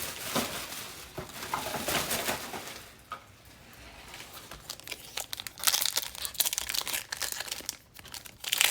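Plastic trading-card pack wrappers crinkling and crumpling as they are handled, in irregular bunches of crackles, loudest near the end.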